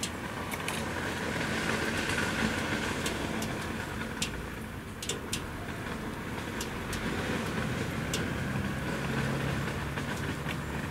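Steady hum of city traffic, with a low engine drone growing stronger near the end and scattered light clicks throughout.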